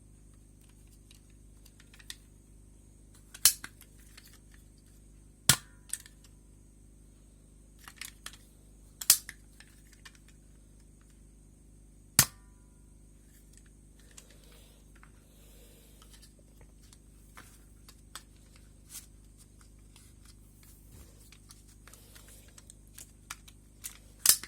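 Sharp snaps and clicks of an Emco Hot Shots toy blaster being worked and fired. About five loud snaps come at uneven gaps, the one about twelve seconds in ringing briefly, with lighter plastic clicks between them.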